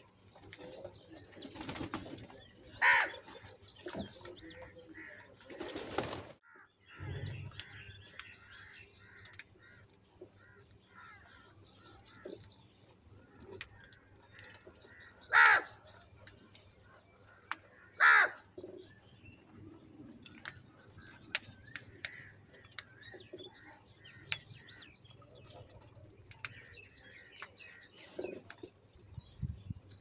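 House crows calling among themselves, with three loud caws about three, fifteen and eighteen seconds in, over rapid high chirping of small birds.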